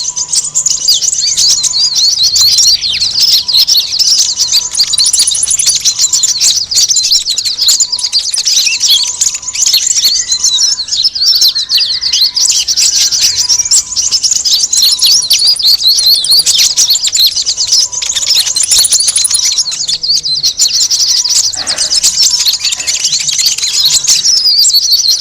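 A dense chorus of many small birds chirping rapidly and without a break, all high-pitched. It is a bird-lure recording of noisy small birds, used to draw in sunbirds.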